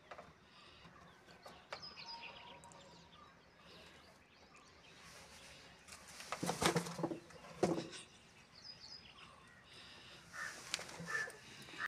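A kitten scrabbling inside a cardboard box: cardboard rustling and scraping, loudest in two short bursts between six and eight seconds in, with small birds chirping now and then.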